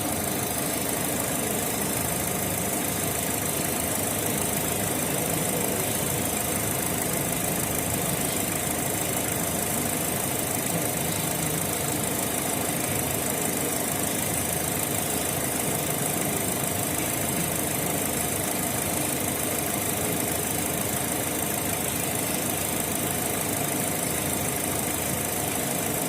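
Opel Z18XE 1.8-litre four-cylinder petrol engine idling steadily while misfiring and shaking, running on three cylinders. The misfire is caused by a defective Siemens Simtec 71.6 engine control unit.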